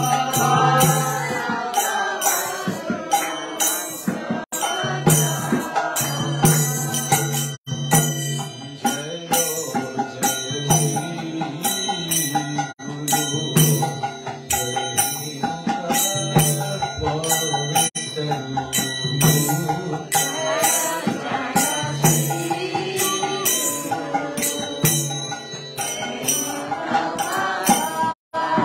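Kirtan: a man's voice chanting a devotional melody into a microphone, over jingling hand percussion that keeps a quick, steady beat. The music drops out briefly just before the end.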